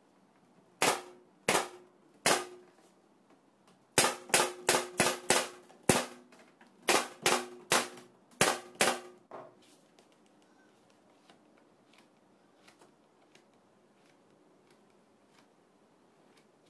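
A hammer striking in a workshop, about fifteen sharp blows in groups: three spaced blows, a quick run of about six, then five more. Each blow leaves a brief ring.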